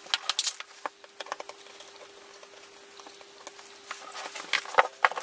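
Scattered small clicks, taps and rustling as the unit's parts and tools are handled on a workbench, over a faint steady hum.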